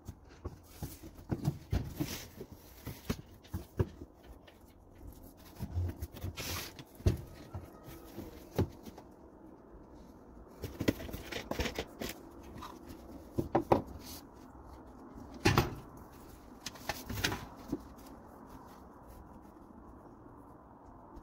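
Irregular knocks, clicks and rattles of gas grill parts being handled and fitted together during assembly, the loudest knock about fifteen seconds in; the knocks thin out over the last few seconds.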